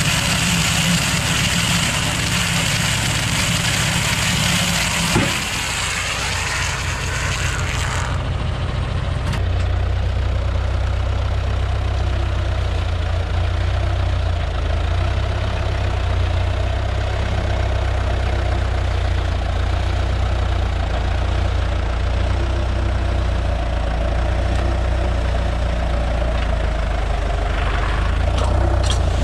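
Tractor diesel engine running steadily. For the first eight seconds or so a broad hiss from the round bale wrapper turning the bale and stretching film off the roll lies over it, then stops, leaving the deep steady hum of the engine.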